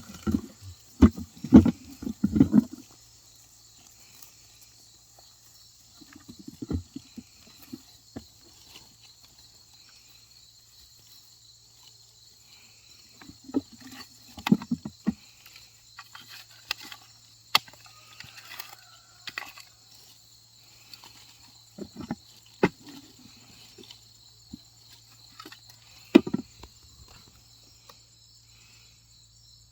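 Short bursts of knocking and scraping, the loudest in the first few seconds and again near the end, over a steady high chirring of insects.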